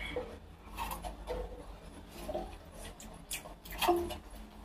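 Close-miked chewing and wet mouth sounds of a man eating food with his fingers, with scattered soft clicks and smacks.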